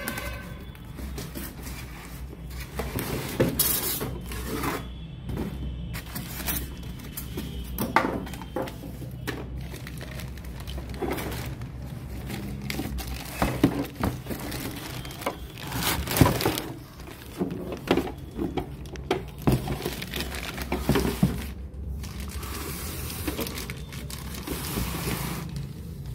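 Cardboard carton, foam packing pieces and plastic wrap being handled and pulled apart: irregular scrapes, rustles and knocks, with a denser stretch of rustling near the end.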